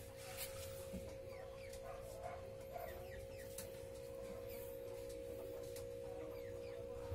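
Chickens clucking faintly, with many short high falling chirps, over a steady hum.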